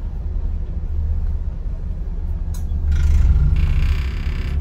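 Bus engine and road noise rumbling steadily from inside the cab. A click about two and a half seconds in is followed by a loud hiss that lasts to the end.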